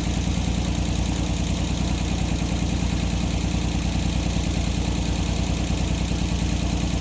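Sawmill's engine running steadily at an even, unchanging pitch.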